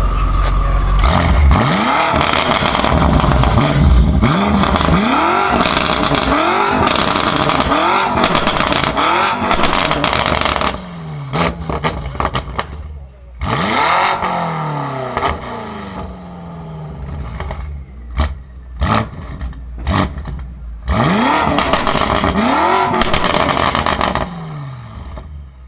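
BMW M5 F90's twin-turbo V8 with a Supersprint exhaust, revved in quick repeated blips, each rising and falling back. Sharp pops and crackles from the exhaust come in the pauses between revs.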